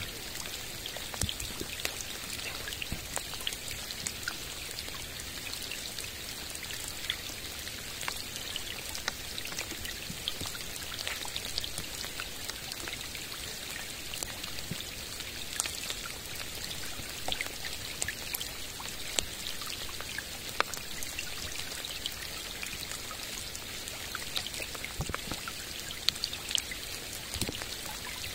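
Steady rain falling on a lake: an even hiss of many small drops hitting the water, with scattered sharper single drop ticks.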